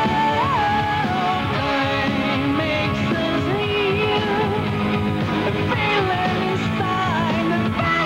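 Power metal band music: electric guitars and drums with a drawn-out, wavering sung melody line.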